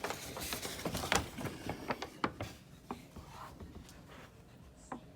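Close handling noise: a run of light clicks, taps and rubbing that thins out after about three seconds, leaving faint room tone with one more click near the end.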